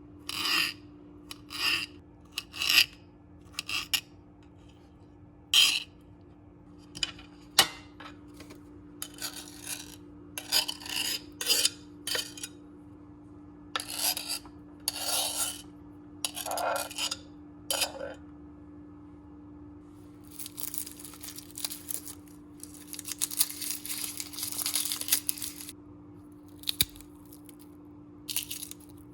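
Kitchen food-prep sounds: a run of short scrapes and rubs, with dishes and utensils being handled, then a longer stretch of continuous scraping and rustling about two-thirds of the way through. A steady low hum runs underneath.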